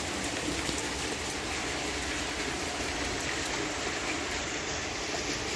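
Heavy rain pouring steadily: a dense, even hiss.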